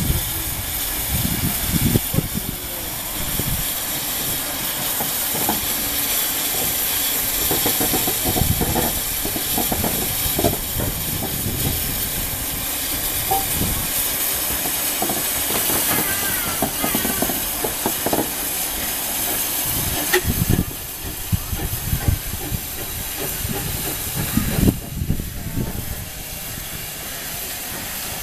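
Narrow-gauge Kerr Stuart 0-6-2T steam tank locomotive moving slowly with its cylinder drain cocks open: a loud, steady hiss of steam over irregular low thumps.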